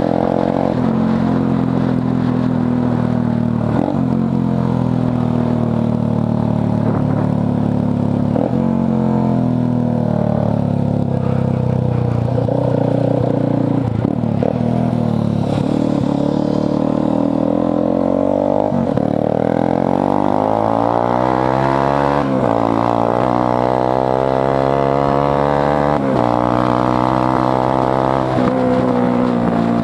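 Motorcycle engine running under way, heard from on board the bike. Its pitch rises and falls through the first two thirds, then climbs steadily, dropping abruptly twice, about 22 and 26 seconds in, between climbs.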